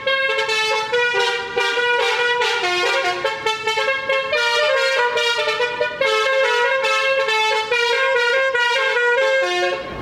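Basuri 'telolet' horn, the roof-mounted horn trumpets on a pickup, playing a continuous tune of stepped notes in a bright, brassy horn tone.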